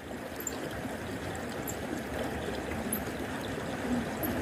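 Steady rush of water flowing along a concrete irrigation channel.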